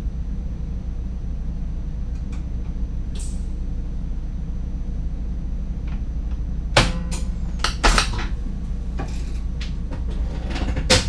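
Steady low hum inside the cab of an NS DDZ double-deck electric train, with a faint high steady whine. A cluster of sharp knocks and clicks comes about seven to eight seconds in, and another knock near the end.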